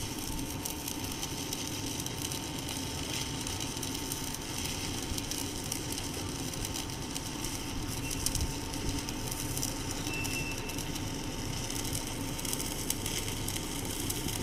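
Stick welding arc burning a 3.2 mm electrode on steel, run from an NBC 288 multi-process inverter welder: a steady crackling sizzle.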